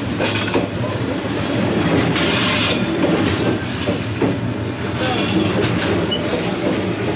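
Train cars rolling steadily past within a couple of feet on the narrow street-running track, with the continuous noise of wheels on rails.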